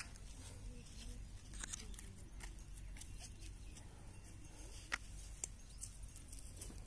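Faint handling of a small cardboard firework box: a few light clicks and rustles as a large snake-tablet pellet is taken out and set on the box, the sharpest click about five seconds in, over a steady low background rumble.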